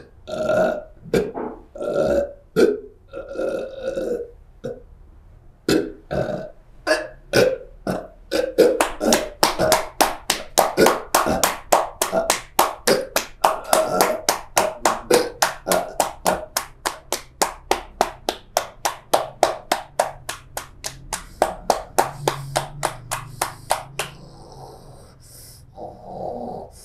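A person belching and retching over and over, at first in irregular bursts, then in a fast, even run of about three a second for some fifteen seconds before it eases off.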